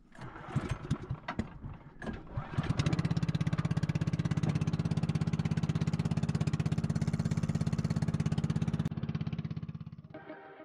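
Small engine of a wooden outrigger boat starting: a couple of seconds of irregular sputters and knocks, then running steadily with a rapid even chug, fading out near the end.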